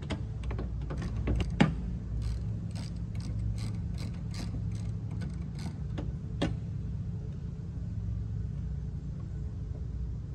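Socket ratchet wrench on an extension with a 10 mm socket, clicking as it backs off a side-view mirror mounting nut inside a car door. A run of short, even clicks, about three a second, stops about six and a half seconds in, over a steady low hum.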